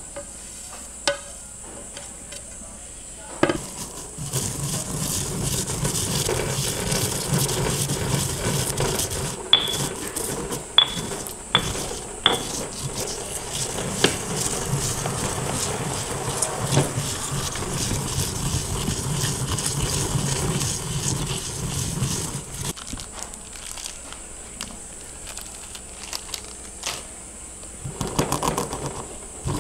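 Cookware clattering: a metal utensil knocking and clinking against a pot, with four sharp ringing clinks in quick succession about ten seconds in, over a steady noise that stops about two-thirds of the way through.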